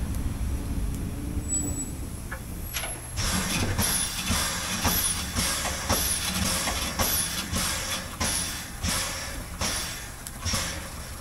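Narrow-gauge steam locomotive under way: a low rumble, then from about three seconds in a steady rhythm of exhaust chuffs, about two a second.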